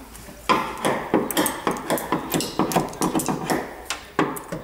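Rapid series of sharp knocks on wood, like hammering, starting about half a second in and going on at about three to four strokes a second.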